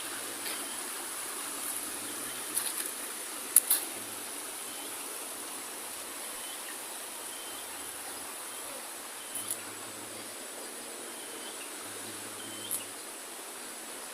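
Outdoor nature ambience: a steady high-pitched insect chorus over an even rushing hiss like flowing water. A few short sharp clicks are scattered through it, two close together a few seconds in.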